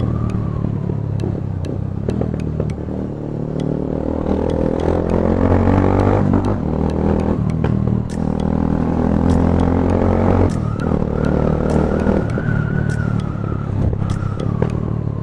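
Bajaj Pulsar 220 motorcycle's single-cylinder engine running under throttle, the revs rising and falling back a few times.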